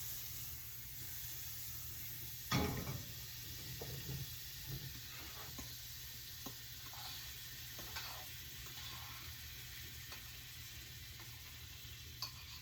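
Pancakes frying in a hot pan, with a steady sizzle. A single clunk comes about two and a half seconds in, followed by a few light knocks of kitchenware.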